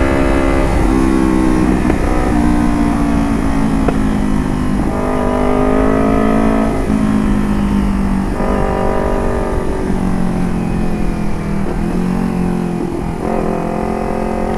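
Motorcycle engine revved repeatedly in its middle rev range through a carbon DX AR1 aftermarket exhaust, the pitch climbing and dropping back several times.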